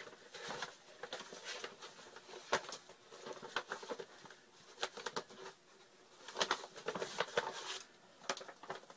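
Flour bag crinkling and rustling as it is handled and tipped to pour flour into a mixing bowl, in a run of irregular soft crackles and scrapes.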